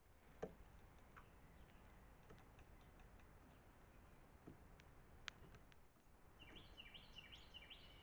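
Near-quiet outdoor background with a few faint sharp clicks, then, over the last second and a half, a songbird singing a quick run of repeated falling notes, about four a second.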